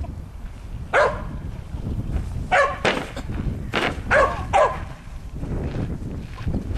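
Small dog barking: about six short, sharp barks, one about a second in, then pairs and a quick run of three over the next few seconds.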